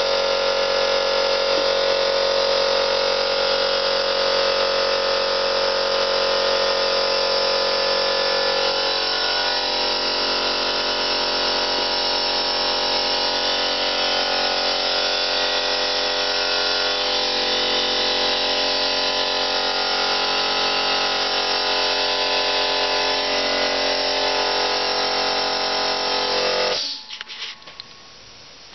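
Electric air compressor motor running steadily as it refills its nearly empty tank, its pitch shifting slightly about nine seconds in. It cuts out abruptly near the end.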